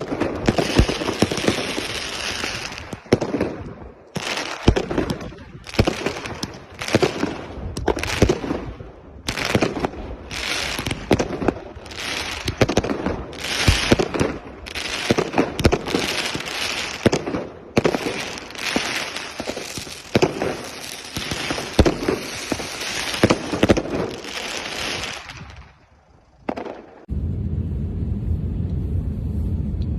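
Fireworks going off: a dense run of bangs, pops and crackling bursts. About 27 seconds in it gives way to a steady low rumble.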